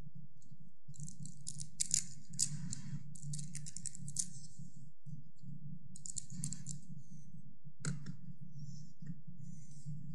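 Scattered small crisp clicks and rustles of communion bread and trays being handled, in two clusters with a single sharper click near the end, over a steady low hum.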